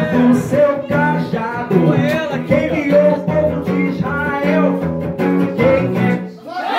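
A man singing a melody into a microphone to his own acoustic guitar accompaniment.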